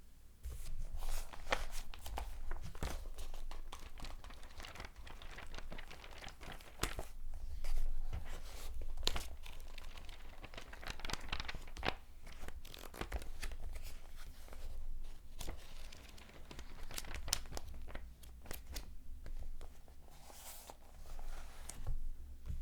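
Paper pages being turned one after another at an irregular pace, each turn a short crisp rustle and flick, over a steady low hum.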